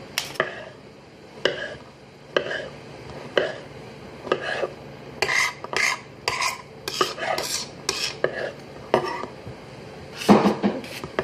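Kitchen knife tapping and clinking irregularly on a cutting board as a tomato is chopped, with a louder clatter near the end.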